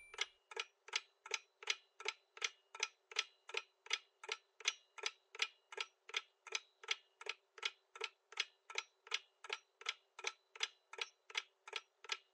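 Clock-ticking countdown timer sound effect: steady, evenly spaced ticks, about three a second.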